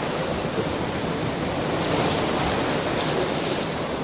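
Ocean surf washing ashore, a steady rush of waves.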